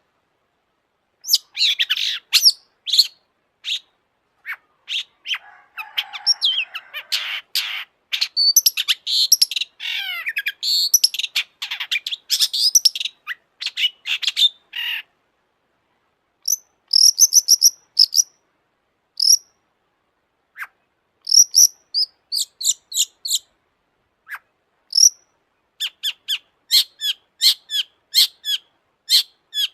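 Long-tailed shrike singing in a fast, varied stream of chirps, trills and whistled notes, broken by short pauses, with a harsh scratchy stretch about six seconds in. Later the song thins into separate short calls, ending in a run of sharp repeated notes about two a second.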